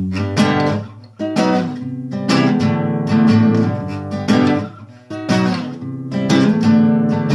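Instrumental passage of a song: strummed acoustic guitar chords, dropping out briefly twice.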